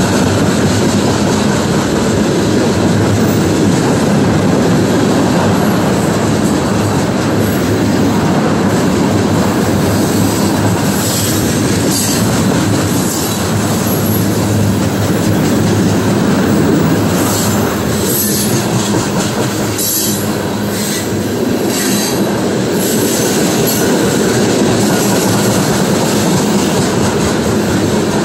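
Freight train cars, steel-coil flatcars and boxcars, rolling past: a steady loud rumble of steel wheels on rail, with several short high-pitched bursts in the middle.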